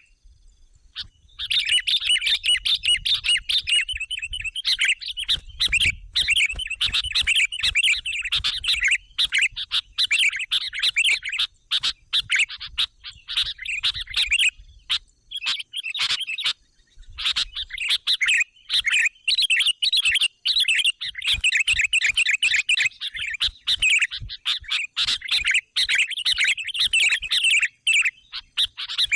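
Sooty-headed bulbul (kutilang) calling: a rapid, busy run of sharp chirping notes, broken by a short pause about a second in and another near the middle. This is the lively calling used as a lure call to draw in wild bulbuls.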